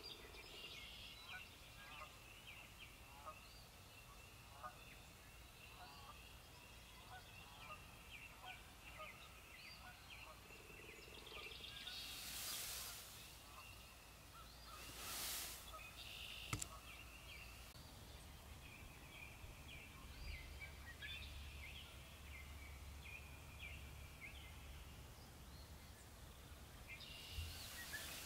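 Faint birdsong: many small chirps and calls overlapping, with two short rushing hisses of about a second each midway and a single sharp click soon after.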